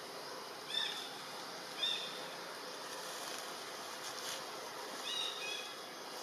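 Forest ambience with a steady hiss, broken by short high chirps of birds: one about a second in, another about two seconds in, and a quick pair near the end.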